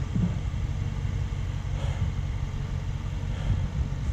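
Range Rover Sport's engine idling with a low, steady rumble.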